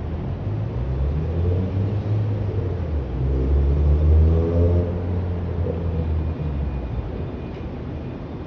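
A motor vehicle passing, its deep engine rumble swelling to its loudest about four seconds in and then fading.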